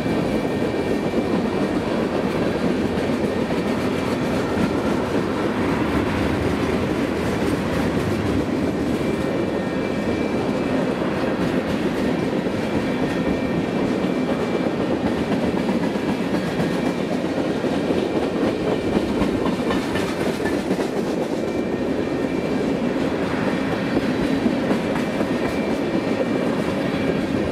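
Freight train of tank cars rolling past close by: a steady rumble and clatter of steel wheels on the rails.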